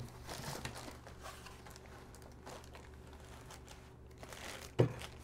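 Plastic wrapping crinkling and a nylon carrying case rustling as a plastic-wrapped aluminium light stand is lifted and handled, with a single sharp knock near the end.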